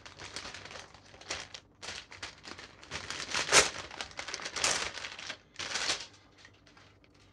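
Crinkling and rustling of a thin plastic bag as plastic model-kit runners are unpacked. It comes in irregular bursts, is loudest about halfway through, and stops about six seconds in.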